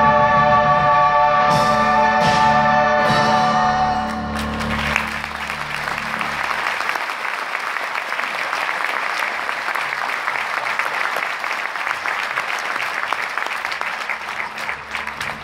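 A held final chord of singing over instruments ends about four seconds in, and the audience breaks into steady applause that carries on to the end and fades a little near the end.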